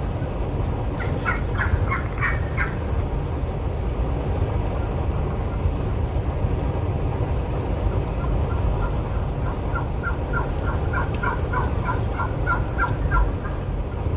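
Wild turkey calling: a short run of repeated notes about a second in, then a longer run of evenly spaced notes from about the middle to near the end. Steady wind rumble on the microphone runs underneath.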